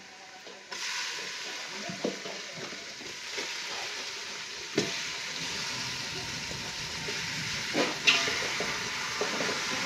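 Raw mutton pieces dropped into hot oil and fried onion-spice masala in a steel pot, setting off a steady sizzle that starts about a second in. A few knocks as more pieces drop in, the loudest near the end.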